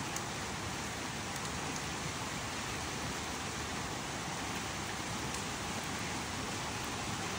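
Steady rain falling on tree leaves, an even hiss with a few faint ticks of drops.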